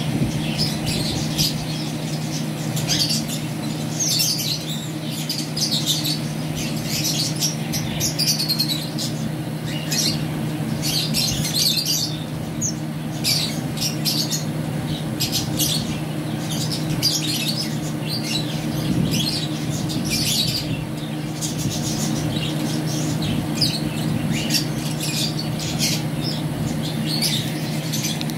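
Many small cage birds in an aviary chirping and calling in short high bursts throughout, over a steady low hum.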